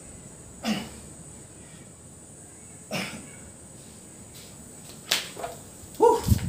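Short, sharp exhalations, one with each push-up rep, about two seconds apart and three in all. Near the end come louder, short sounds as the man gets up off the floor with the push-up board.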